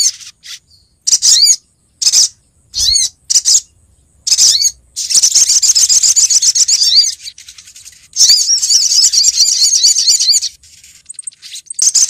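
Olive-backed sunbird calls, a female's call to males used as a trapping lure. Short high chirps come in quick separate groups for the first few seconds, then two long runs of rapid high trilling of about two seconds each, starting around five and eight seconds in, with scattered chirps near the end.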